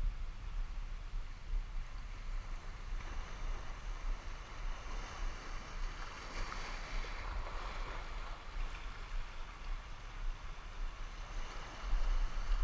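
Small sea waves washing against shoreline rocks, a hiss that swells and fades, over a steady low rumble of wind on the microphone. The rumble grows louder near the end.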